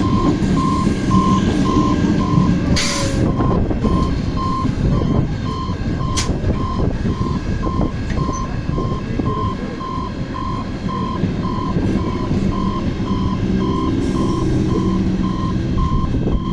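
Electronic warning beeper at a closed railway level crossing, sounding steadily about twice a second over the low rumble of idling vehicles, with a short hiss about three seconds in.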